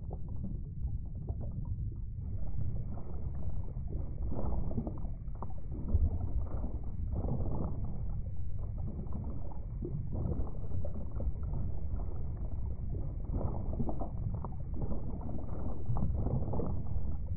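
Underwater recording: muffled, low water noise that swells and fades every second or so, with nothing high-pitched in it.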